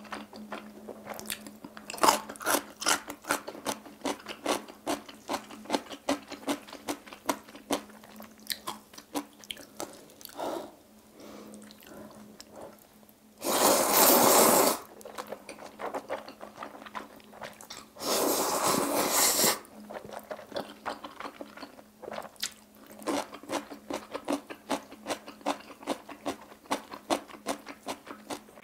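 Close-miked eating of black-bean-sauce jjajang noodles: rapid wet chewing and mouth clicks, with two long, loud noodle slurps about halfway through, a few seconds apart.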